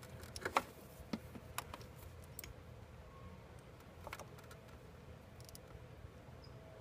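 Light clicks and taps of a hand screwdriver on the Torx security screws and plastic housing of an idle air control valve as it is screwed down: a quick cluster in the first second, then a few scattered clicks.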